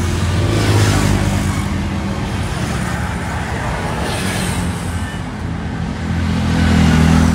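Road traffic: motor vehicle engines running and passing close by, a steady low hum that swells near the start and again near the end.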